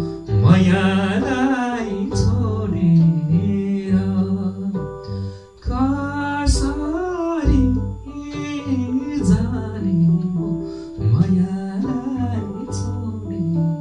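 A man sings a Nepali folk song with a wavering vibrato, accompanying himself on an electronic keyboard. Held keyboard notes sound under the voice, and regular drum beats run through.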